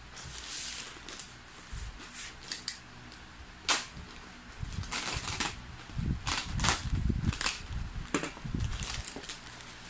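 Cardboard delivery box being opened by hand: a string of sharp snaps and rips, with dull thumps and rustling of handling in the second half.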